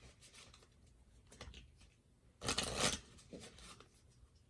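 Tarot cards being shuffled by hand: a short burst of riffling about two and a half seconds in, with fainter card rustles around it.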